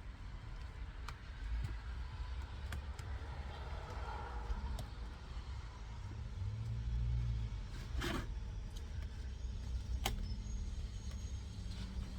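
Light clicks and a short scrape of small parts being handled as a rubber dust boot is worked back onto a clutch slave cylinder, over a steady low rumble; the scrape comes about eight seconds in and a sharper click about two seconds later.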